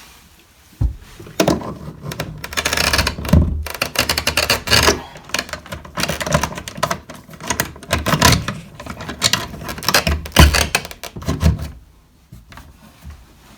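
Irregular clicking, knocking and rattling of an old-work electrical box being tightened into the wall, its mounting screws being turned down. It starts about a second in and stops shortly before the end.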